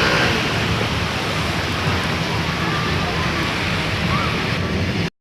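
Heavy rain and strong wind making a loud, steady noise, with a low hum underneath. It cuts off suddenly near the end.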